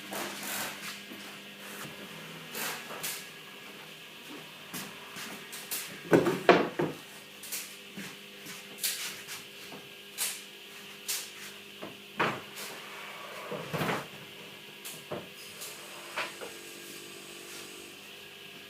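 Wooden parts of a folding bon-dana shelf knocking and clacking as it is handled and set up: irregular knocks, loudest in a quick cluster about six seconds in and again around twelve and fourteen seconds, over a faint steady hum.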